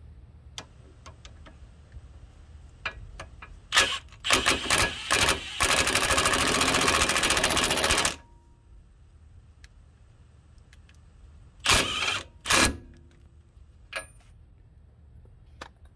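Impact wrench on its lowest setting hammering the CV axle nut down onto a new hub bearing. It gives a few short bursts, then a steady rattling run of about two and a half seconds, and two more short bursts about four seconds later.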